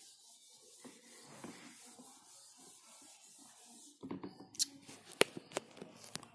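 Whiteboard being wiped clean with a duster: faint rubbing strokes. About four seconds in comes a run of sharp clicks and knocks, the loudest just after five seconds.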